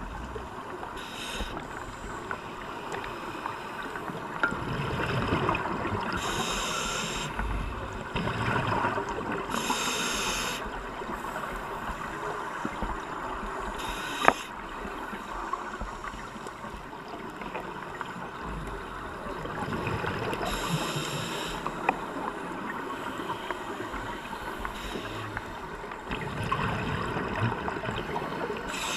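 Scuba diver's regulator breathing heard through an underwater camera housing: a muffled, steady rush of water, broken five or six times by short hissing bursts of exhaled bubbles. A single sharp click about halfway through.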